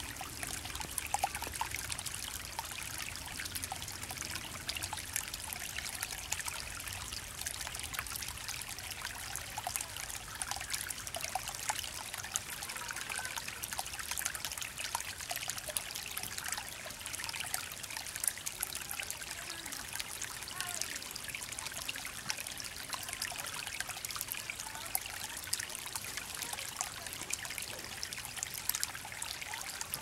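Shallow forest creek trickling over stones: a steady splashing hiss with many small plinks and drips.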